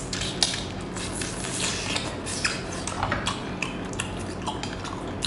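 Close-up wet eating sounds of a sea cucumber being bitten and chewed: irregular squishy clicks and smacks, some small clicks like utensils, over a low steady hum.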